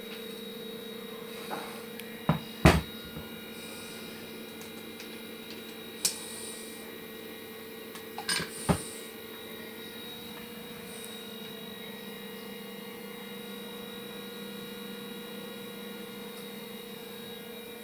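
Steady electrical hum from the welding equipment, with a few sharp knocks and clicks as the orbital welding head is handled and opened on the welded metal tube: a loud pair about two and a half seconds in, one about six seconds in and a cluster near nine seconds.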